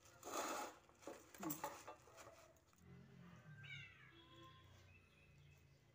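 A cardboard sweet box and its paper wrapper rustling and clicking as they are handled, then a toddler's faint, high little vocal sounds from about three seconds in.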